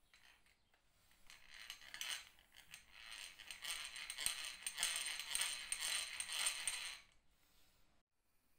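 Restored Goodell-Pratt No. 245 two-speed hand breast drill being cranked, its gears rattling and clicking rapidly as the bit bores into a wooden board. The sound builds from about a second in and stops abruptly at about seven seconds.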